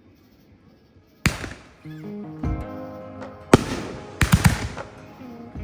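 Fireworks bursting: a single bang about a second in, another about three and a half seconds in, then a quick cluster of cracks a little later. Background music starts softly about two seconds in.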